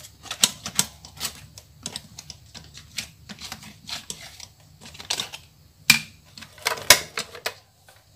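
Irregular clicks, taps and clatters of kitchen utensils being handled: hand-mixer beaters lifted out of and knocked against a plastic mixing bowl, with a few sharper knocks about six and seven seconds in.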